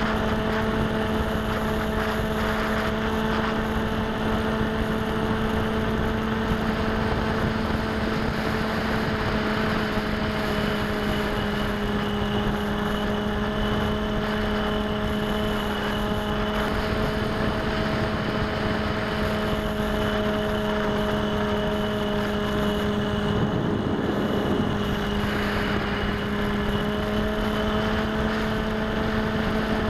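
Bixler foam RC plane's electric pusher motor and propeller running at a steady throttle in flight, heard from the onboard keychain camera as a constant pitched hum over the rush of air.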